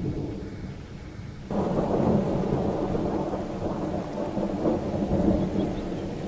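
Thunder rumbling low and long. About a second and a half in, the sound changes abruptly to a louder, fuller rumble.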